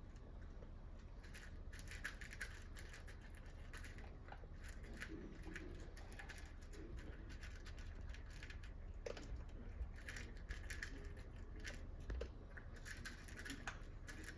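A Yorkshire terrier chewing and crunching its food: a long run of small, irregular crunches.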